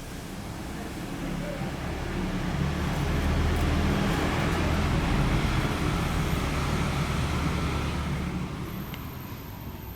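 A motor vehicle driving past, its engine and tyre noise growing to loudest about halfway through and then fading away.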